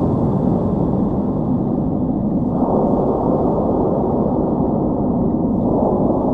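A loud, low, rumbling drone of the kind used as horror sound design. It shifts in tone twice, a few seconds apart.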